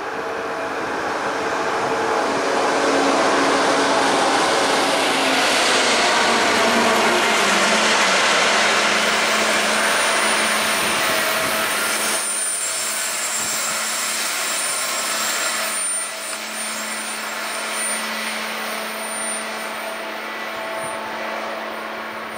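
DB ICE high-speed electric train running past on the tracks. Its running noise swells over the first few seconds, holds, then slowly fades, leaving a steady hum.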